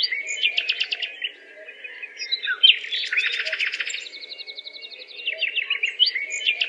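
Songbirds chirping in repeated bursts of quick, high notes, with a dense flurry in the middle and a fast trill a little after.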